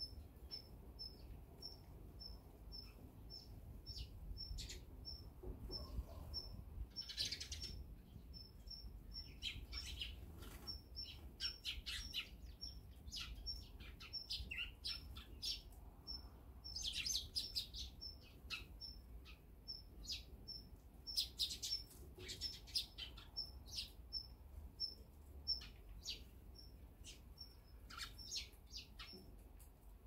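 Eurasian tree sparrows chirping at a seed feeder, in quick clusters of short chirps. Through it runs a high single note repeated evenly about twice a second.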